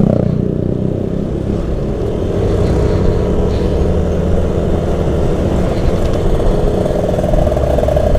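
Motorcycle engine running steadily while riding, its note rising a little near the end.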